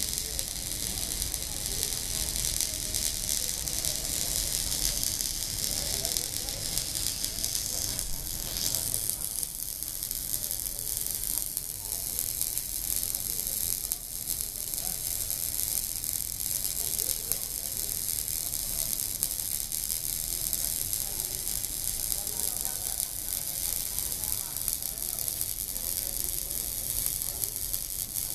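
Welding arc burning with a steady, dense crackling sizzle that runs without a break.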